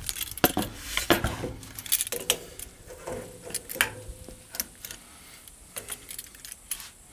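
Metal tongs clicking and scraping against a steel grill grate as ribs are lifted off it: irregular metallic clinks and clacks mixed with a few duller knocks.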